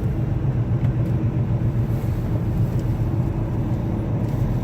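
Semi truck's diesel engine and drivetrain running steadily as the tractor-trailer rolls slowly, heard from inside the cab as a steady low drone.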